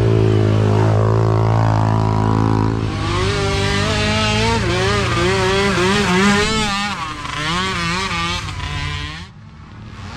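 Small ATV engines running: a steady drone underneath while another engine revs up and down in quick wavering swells as it rides the trail. The sound drops away abruptly about nine seconds in.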